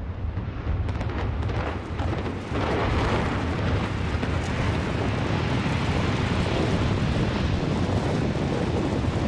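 A rapid series of demolition charges cracking in the first two seconds or so. Then the roar and rumble of a 31-storey reinforced-concrete high-rise collapsing, which goes on steadily.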